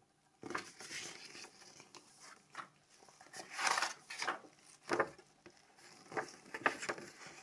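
Paper leaflets rustling and crackling as gloved hands fold and handle them, in irregular bursts with a few sharp clicks around the middle and near the end.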